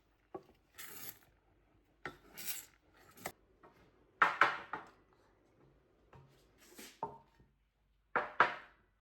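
A series of short scrapes and sharp clicks, like household objects being handled and set down on a hard surface. There are about nine separate sounds with short pauses between them, and the loudest pair comes near the end.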